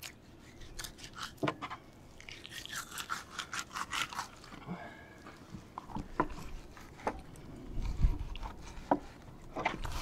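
Fillet knife scraping along a grouper fillet on a cutting board as the skin is cut away: a run of short scrapes and light clicks, densest a couple of seconds in. A few dull low thumps come near the end.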